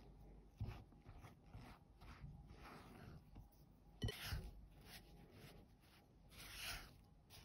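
Spatula scraping and stirring flour into a stiff cookie dough in a glass bowl, a faint scrape with each stroke about every half second. There is one sharp knock about four seconds in, and a longer, stronger scrape near the end.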